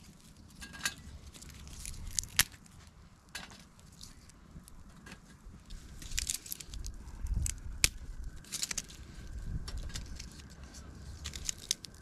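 Dry sticks snapping and a small wood fire crackling in a folding wood-burning stove: a string of sharp cracks spaced a second or two apart.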